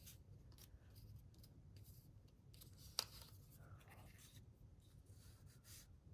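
Faint rustling and light taps of paper sheets being handled and shuffled, with one sharp click about three seconds in.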